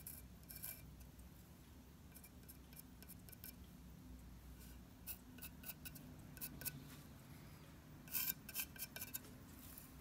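Pencil lead scratching and rubbing over the underglazed surface of a stoneware mug. The short, faint strokes come in small clusters, busier in the second half and loudest about two seconds before the end.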